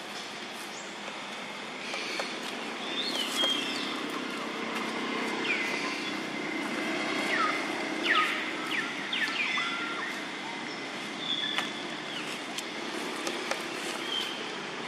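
Outdoor ambience: a low steady rumble that swells over the first several seconds and then eases, under a scattering of short, high chirping bird calls.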